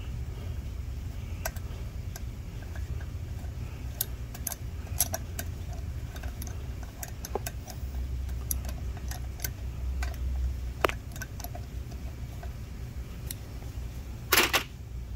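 Small metallic clicks and ticks of a Helicoil installing tool being turned to wind a 3/8-16 thread insert into a tapped hole in an aluminum casting, over a steady low hum. A brief louder metal clatter comes near the end.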